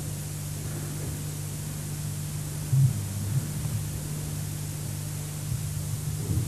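Steady hiss and low electrical hum of recording noise, with one brief low thump about three seconds in.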